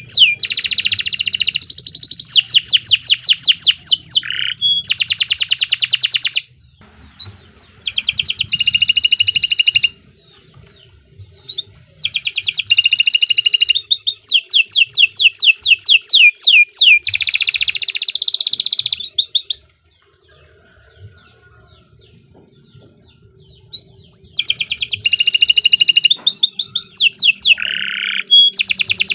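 Domestic canary singing long phrases of fast, high trilled notes in bursts of several seconds, broken by a few short pauses.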